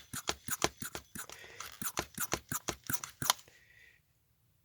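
Hand-operated vacuum pump being squeezed in quick repeated strokes, several clicks a second, pulling vacuum on a vintage Cadillac climate-control power servo. The strokes stop about three seconds in.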